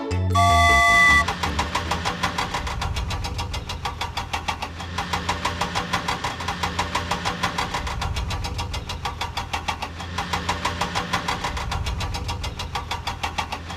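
A short, loud, bright chime in the first second, then an engine running with a rapid, even knocking rhythm: a motor-vehicle sound effect laid over the toy excavator.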